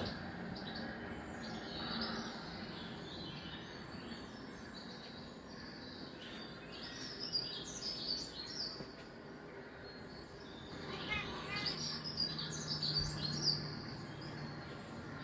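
Songbirds chirping and twittering in a bird video playing through a TV's speaker: many short, high calls over a steady background hiss, busiest in the second half.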